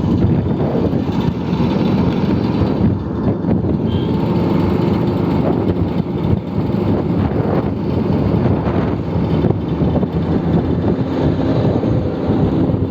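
Vespa scooter running steadily under way, its engine note mixed with road and wind rush.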